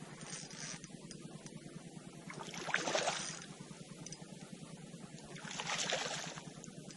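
Water splashing twice, each splash a short swell of noise, about three seconds apart, over a faint steady low hum.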